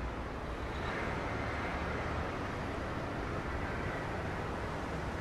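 Steady street traffic noise: a low rumble of motor cars with an even hiss over it, swelling slightly about a second in.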